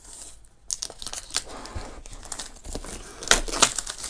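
Clear plastic shrink-wrap being torn and peeled off a cardboard product box, crinkling and crackling, with a few sharper, louder crackles about three seconds in.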